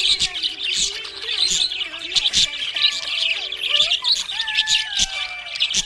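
Budgerigars chirping rapidly and continuously, with a longer whistled note gliding downward in the last second and a half.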